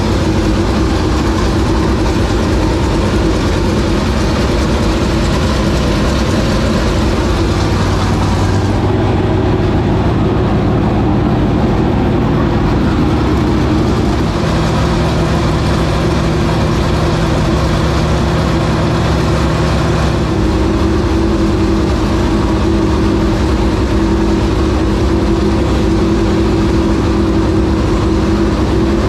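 A 465-cubic-inch dirt late model race engine idling loudly, running for the first time after three years of sitting. Its idle settles to a slightly different note a few times, about 9, 14 and 20 seconds in.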